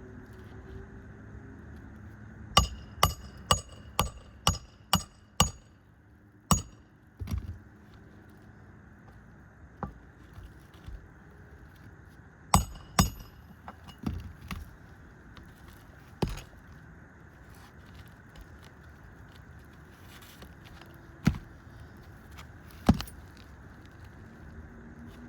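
Hammer driving roofing nails into asphalt shingles: a quick run of about seven ringing metal strikes, then scattered short groups and single blows.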